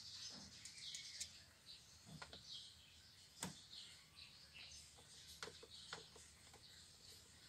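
Faint clicks and small scrapes of a hand screwdriver driving screws into the plastic steering-column cover, with one sharper click about three and a half seconds in.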